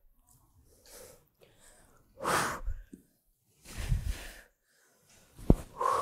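A woman's heavy breathing from exertion: three sharp, noisy exhales about a second and a half apart, with one sharp tap near the end.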